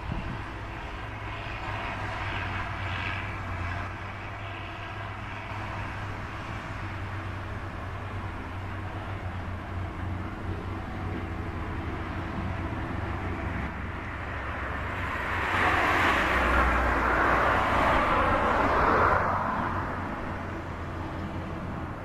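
John Deere 7530 tractor's six-cylinder diesel engine running steadily under load, pulling a reversible plough. About two-thirds of the way through, a broad rushing noise swells louder for about four seconds, then eases off.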